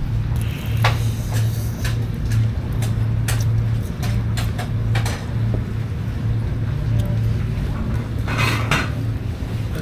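Crunching and chewing of crispy deep-fried chicken close to the microphone, with scattered sharp clicks of dishes and a short louder noise near the end, over a steady low hum.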